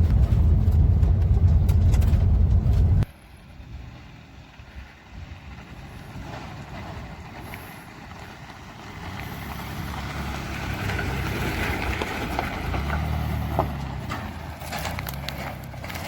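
Four-wheel-drive vehicle driving: a loud low engine and road rumble for the first three seconds that cuts off abruptly, then quieter engine and tyre noise that swells again in the second half.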